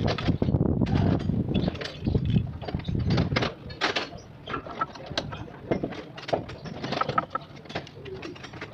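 Irregular clicking, clinking and knocking of hand tools on metal pump parts being worked on, busier and louder in the first few seconds, then lighter.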